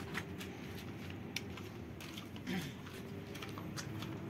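Faint steady outdoor background rumble with a few light clicks and taps scattered through it.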